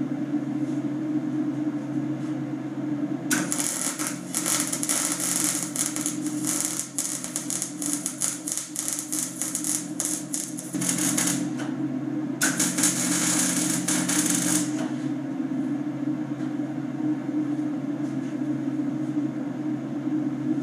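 Electric arc welding on steel: the arc crackles in two runs, a long bead of about seven seconds starting a few seconds in, then a shorter one of about two seconds, over a steady low hum.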